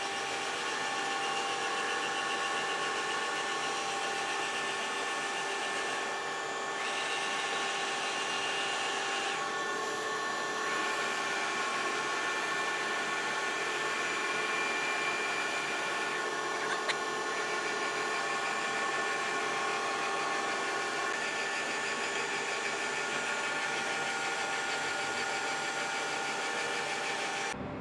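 Heavy-duty CNC vertical turning and boring mill running: a steady machine whine with several held tones over a hiss, and a single sharp click a little past halfway.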